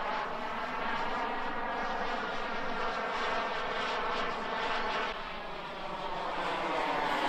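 Turbine engine of a giant-scale RC F-100 Super Sabre model jet in flight: a steady rushing jet roar with a sweeping, phasing sound as it moves across the sky. It dips about five seconds in, then grows louder as the jet comes closer, with a thin high whine near the end.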